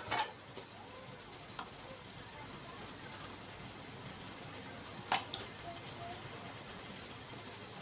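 Mirin trickling faintly from a bottle into a metal tablespoon and spilling into a small plastic tub, heard as a soft steady hiss, with light clicks at the start and about five seconds in.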